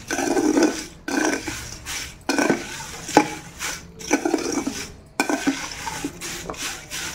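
A metal spoon stirring crisp fried curry leaves in a stainless steel bowl to coat them with turmeric and salt: scraping, rustling strokes about once a second, with a sharp clink of spoon on bowl about three seconds in.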